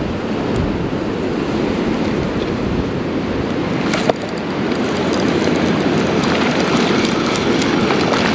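Steady rushing noise of wind and creek water on the microphone. About four seconds in there is one sharp knock, followed by rapid, faint ticking.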